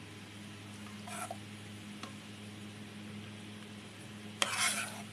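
A metal ladle spooning syrupy amra pickle into a white bowl. There is a brief wet scrape about a second in, a faint click near two seconds, and a sharp clink followed by half a second of wet splashing near the end, all over a steady low electrical hum.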